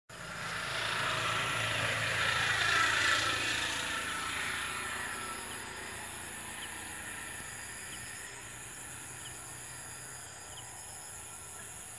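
Distant engine rumble that swells to its loudest about three seconds in and then slowly fades, over a steady high-pitched insect drone.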